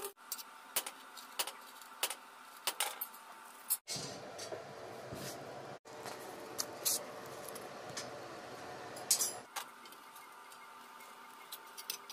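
Scattered light clicks and clinks of steel sheet pieces being handled and set down, over a faint steady hum. For about five seconds in the middle, a louder rough rumbling noise runs under them and then stops suddenly.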